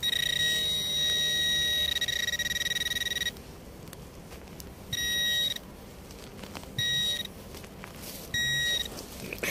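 Metal detector sounding a steady high-pitched signal tone for about three seconds, then three short beeps at the same pitch. It is the target signal over a buried object that the detectorist reads as a coin.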